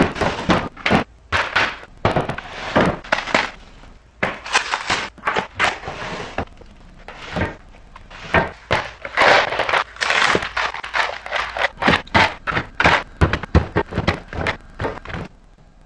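Containers and packaging being handled and set in place during a kitchen restock: a quick run of clicks and knocks, with stretches of rustling and scraping between them. The sounds stop shortly before the end.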